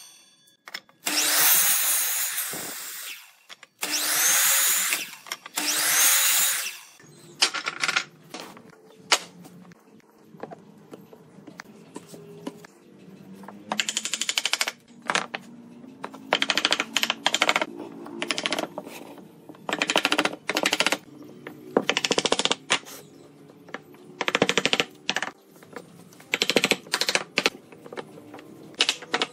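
A power tool running in repeated bursts: three long, loud runs in the first seven seconds, then many shorter, quieter bursts with a low steady hum between them.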